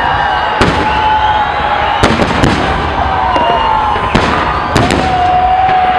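Large fireworks display: about ten sharp shell bursts over continuous crackling, with long whistling tones that are held steady and then drop in pitch as they end.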